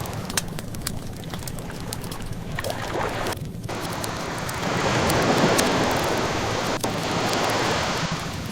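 Ocean waves washing in, swelling to a surge about five seconds in, with the crackle and scattered pops of a burning wood fire over them.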